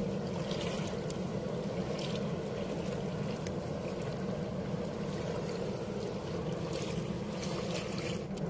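Steady low drone of a small wooden boat's motor running, with water washing past the hull and a few faint clicks.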